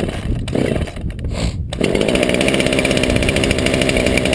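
Craftsman 50cc two-stroke chainsaw engine running just after a cold start, uneven at first, then a little under two seconds in it changes abruptly to a steady, even run, as it is set to half choke and left to idle.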